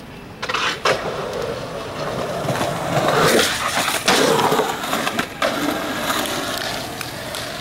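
Skateboard wheels rolling on concrete, with three sharp clacks of the board about a second in, at four seconds and at five and a half seconds. The one at four seconds is the loudest.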